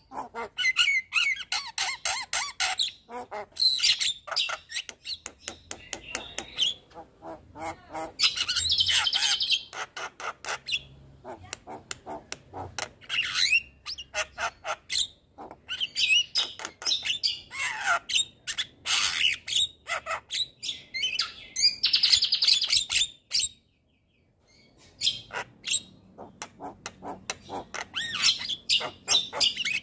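Javan myna (jalak kebo) singing a long, varied song of rapid chattering runs, whistles and harsh squawks. It breaks off in a brief silence about three-quarters of the way through, then carries on.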